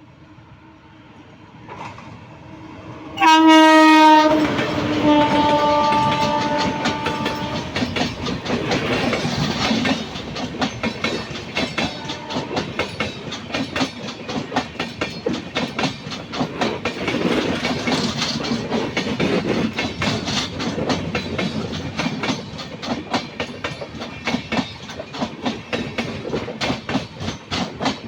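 Indian Railways train horn: one short loud blast about three seconds in, then a second, longer note. The train then passes with a continuous rapid clatter of wheels over rail joints.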